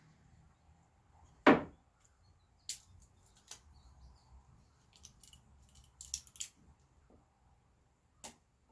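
One loud knock about a second and a half in, then scattered light clicks and taps: small workshop handling noises of wood and tools being moved and set down.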